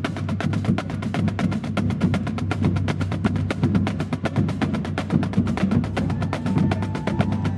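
Marching band drumline playing a fast, even cadence of snare strokes over bass drum.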